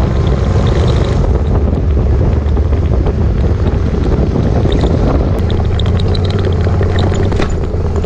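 Heavy wind buffeting the microphone over a motorcycle's engine and road noise at highway speed, a steady low drone under the rushing air.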